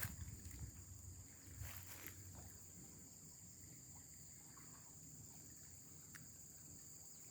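Faint, steady chorus of crickets or similar insects, a continuous high-pitched buzz. A sharp click right at the start and a few soft knocks about two seconds in.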